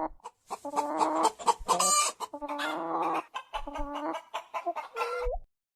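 Hens clucking: a quick run of short, pitched clucks and cackles that stops just before the end.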